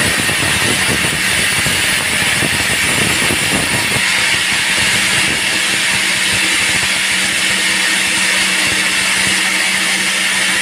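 Band sawmill running as its blade cuts through a teak log: a steady, loud rushing saw noise over a constant low hum.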